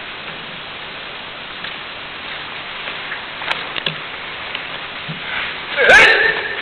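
Steady hiss of hall ambience with a few faint taps. About six seconds in comes a sudden loud shout that bends in pitch: a martial artist's kiai.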